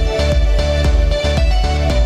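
Background music with a steady beat, strong bass and held melodic notes.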